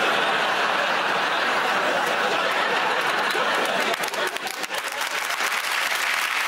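Studio audience applauding, with the separate claps standing out more sharply from about four seconds in.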